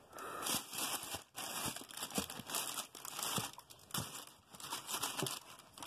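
Irregular crinkling and rustling, with small scratchy clicks, as a new sneaker is handled and turned over in its shoebox.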